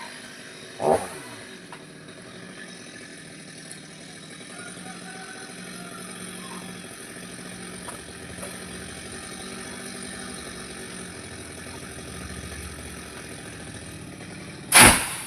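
A small engine running steadily at low speed. A loud sudden noise comes about a second in, with a falling tone trailing after it, and another, louder one comes near the end.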